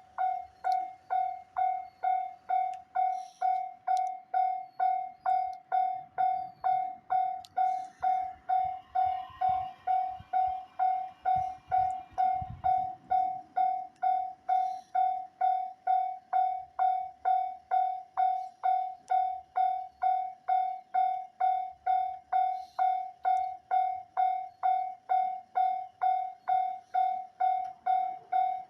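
Japanese railway level-crossing warning bell ringing its 'kan-kan' alarm: a single ringing tone struck about twice a second, unbroken and evenly spaced. A faint low rumble rises under it around the middle.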